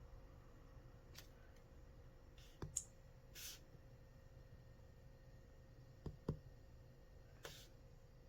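Near silence with a few scattered light clicks, one pair close together, and a brief soft rustle, over a faint steady hum.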